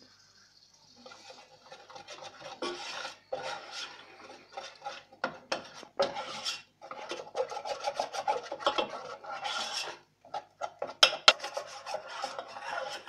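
A wire whisk scraping and clicking against a stainless steel saucepan as flour is beaten into melted butter to make a roux. It starts about a second in as fast, uneven scraping, with the sharpest metal clicks near the end.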